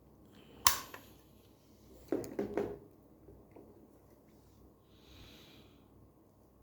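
A sharp click, then three quick knocks about a second and a half later, like hard objects being handled; a faint short hiss near the end.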